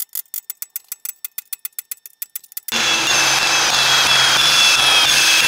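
A quick run of light clicks, about nine a second, then about two and a half seconds in a cordless drill starts and runs steadily under load with a high whine, drilling a hole into the steel square-tube frame for a rail mounting screw.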